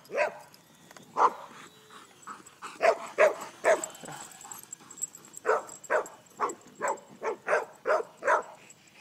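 Dogs barking in short, sharp barks at a model airplane they are chasing: a few scattered barks at first, then a quicker run of about eight barks in the second half.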